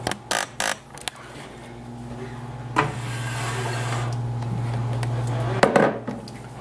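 Kitchen handling noises: a few sharp clicks and knocks of things being set down and moved on the counter, over a steady low electrical hum.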